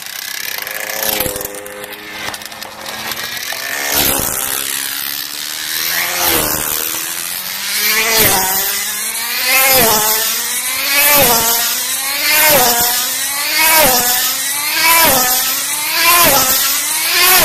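High-speed RC race car's engine lapping an oval track, each pass a loud whine that swoops down in pitch as it goes by. The passes are spaced out at first, then come regularly about every second and a half from about eight seconds in as the car reaches full speed of over 110 mph.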